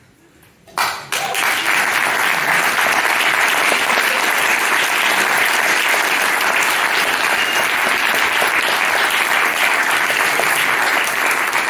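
Audience applauding. The clapping starts abruptly about a second in and keeps up steadily.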